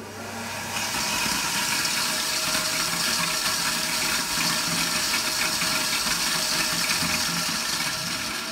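Air-mix lottery ball machine running: its blower rushes steadily as the numbered plastic balls are blown around and clatter inside the clear globe. The blower starts shortly after the beginning and cuts off near the end.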